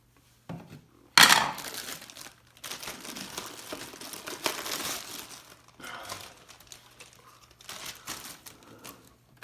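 Plastic crinkling and rustling as an air purifier filter and its wrapping are handled. It starts suddenly and loudest about a second in, keeps going in irregular bursts, then thins out to a few softer rustles.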